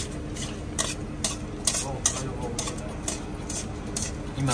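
Metal tongs tossing shredded salad vegetables in a stainless steel mixing bowl: a string of scrapes and clinks against the bowl, about two or three a second, over a steady low hum.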